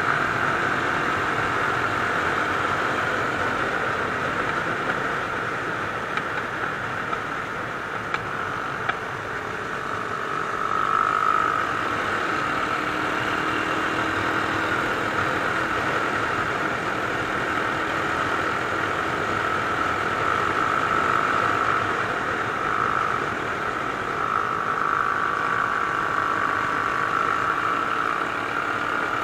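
Mash Cafe Racer 250's single-cylinder four-stroke engine running steadily under way, heard from on board with road and wind noise over it.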